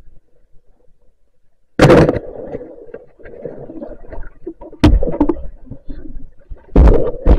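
Underwater thud of a speargun shot about two seconds in, followed by churning noise and three more sharp knocks as the speared fish struggles on the shaft.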